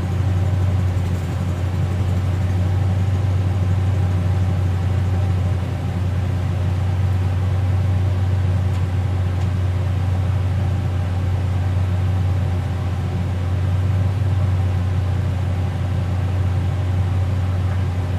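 Engine running at a steady speed, a constant low hum with no revving.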